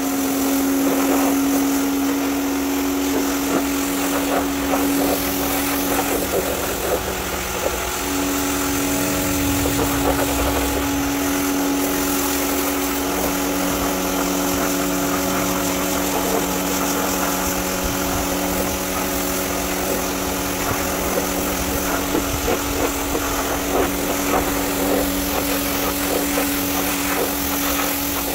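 Pressure washer running: a steady motor hum under the hiss of the water jet hitting a car's floor carpet. The hum drops out for about two seconds around six seconds in.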